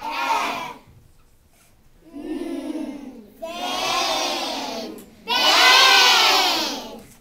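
A class of first graders calling out together in chorus in four bursts, the last one the loudest and longest: a choral response in a phonics blending drill.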